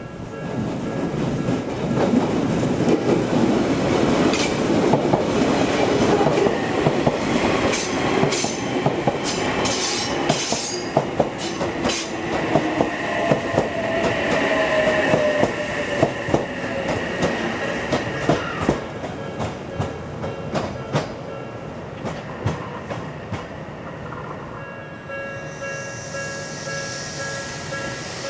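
Odakyu electric train passing a level crossing, its wheels clattering over the rail joints and its traction motors whining with a pitch that falls midway through the pass. The crossing's warning bell rings throughout and is heard clearly again near the end as the train moves away.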